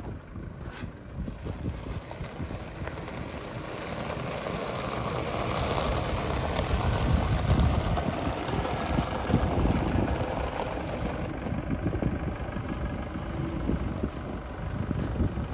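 Chevrolet Colorado Z71 pickup's engine idling steadily through its exhaust, growing louder about halfway in.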